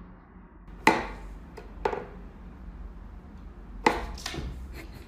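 Wooden whack-a-mole cat toy box knocking as its pegs are pushed and the pop-up mouse and the cat's paw strike the box: three sharp, hollow knocks about a second in, two seconds in and four seconds in, with lighter clicks between.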